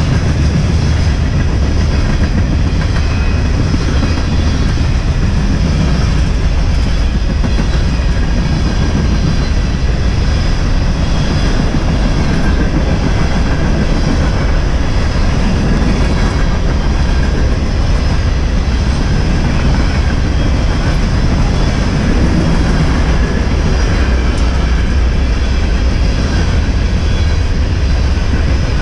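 A freight train's cars rolling steadily past on steel rails at close range: a continuous loud rumble of wheels on track.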